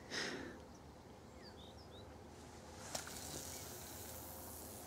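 A feeder rod swishing as it is cast, a brief hiss at the start. Then quiet riverside ambience with a few faint bird chirps and a single click about three seconds in.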